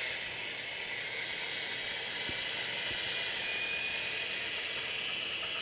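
Electric coffee grinder running steadily, a constant whir, grinding whole coffee beans to a coarse grind for French press.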